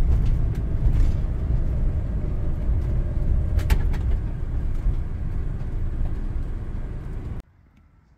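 Steady low engine and road rumble of a camper van driving on wet town streets, heard from inside the cab, with a brief click about three and a half seconds in. It cuts off suddenly near the end.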